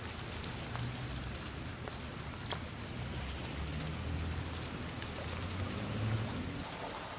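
Steady rain falling, with scattered single drops ticking and a low rumble underneath.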